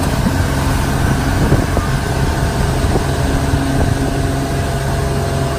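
Motorboat engine running steadily under way while towing, with the rush of water from its wake.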